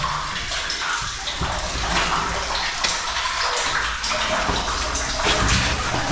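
Water splashing and trickling into a cave pool, steady throughout, with a few small knocks.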